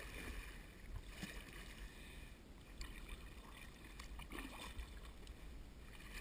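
Kayak paddle strokes in calm river water: soft splashes and drips every second or so, with a low wind rumble on the microphone.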